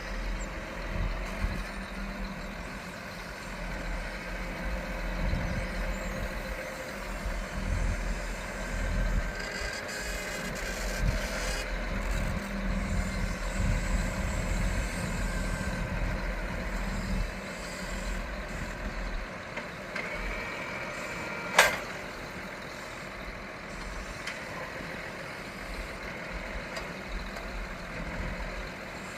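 Heavy vehicle engine running steadily with a low rumble at hay-loading equipment. A little past the middle there is a short high tone, then a single sharp crack.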